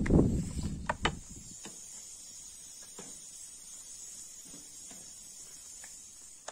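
Dough being worked by hand on a wooden board: low rumbling handling noise and two sharp wooden knocks in the first second and a half. After that, a steady high chirring of insects with a few faint clicks.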